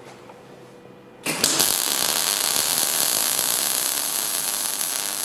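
Transformer MIG welder arc with 1.0 mm wire, struck about a second in and then burning with a steady crackle in short-circuit transfer. It is how the welder should sound with wire feed and current set about right; the spatter comes from the short arc.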